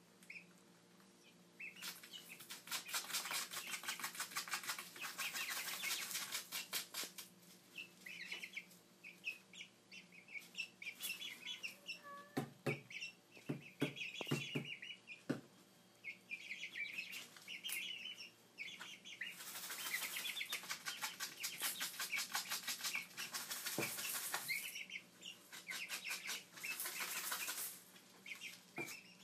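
Young pullets dust-bathing in loose sand: long bursts of rapid scratching and wing-flapping that flick sand about, with short high peeping calls between the bursts. A few separate knocks come near the middle.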